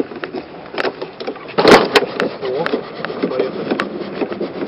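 Motorhome roll-out awning being wound out with a hand-crank rod: a run of clicks and rubbing from the crank and awning gear, with one louder scrape about a second and a half in.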